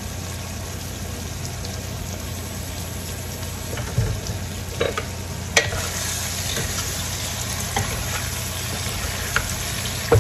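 Pork in soy sauce and vinegar simmering and sizzling in a cooking pot over a steady low hum, with a few sharp knocks of a utensil against the pot from about four seconds in.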